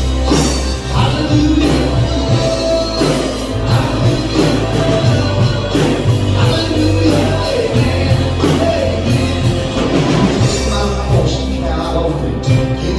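Live band playing an instrumental stretch of a worship song, with bass, drum kit and other instruments.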